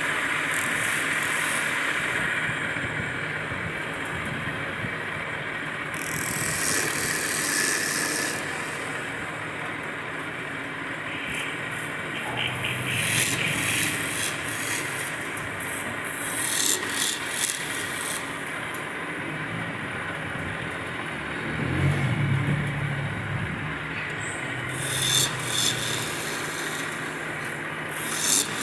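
Wood lathe running steadily, with a turning tool scraping across the spinning wood in repeated bursts of one to two seconds.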